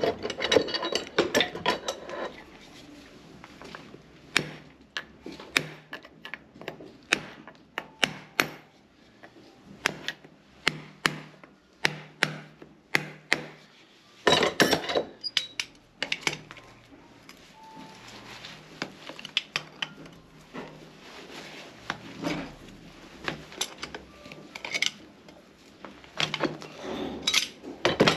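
Steel farrier's tools clicking, tapping and scraping against a horse's nailed-on steel shoe as the old shoe is worked loose and pried off the hoof. Many sharp, irregular metal taps, with bouts of scraping near the start and about halfway through.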